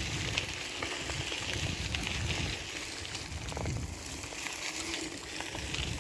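Bicycle rolling along a gravel road: tyres crunching, with scattered small clicks and rattles from the bike and gusty wind rumble on the microphone.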